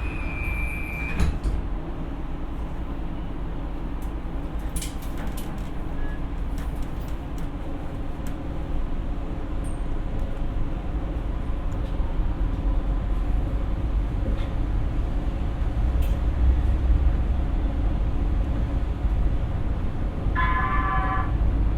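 Siemens P2000 light rail car departing a station: a steady door warning tone ends, the doors knock shut about a second in, then the train accelerates away with low rumbling running noise that grows gradually louder.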